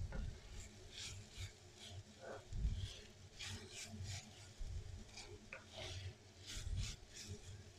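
Faint scraping of a wooden spatula against a clay pot as it stirs chopped ginger frying in oil, in irregular strokes with soft knocks.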